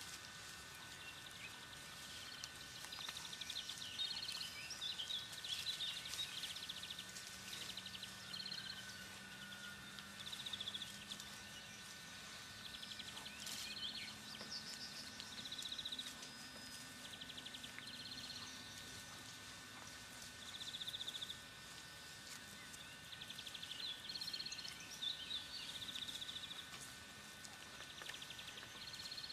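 Faint rural outdoor ambience: a high chirring trill repeats every second or two over a thin, steady high whine.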